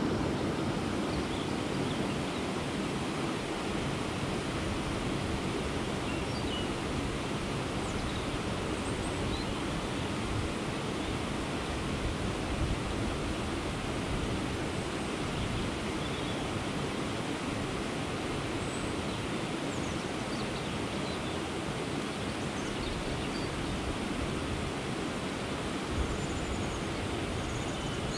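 Steady outdoor rushing noise, with faint high chirps now and then.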